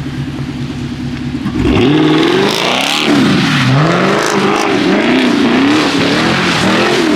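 Car engine idling, then about a second and a half in revving hard, its pitch swinging up and down again and again as the car slides on the wet road.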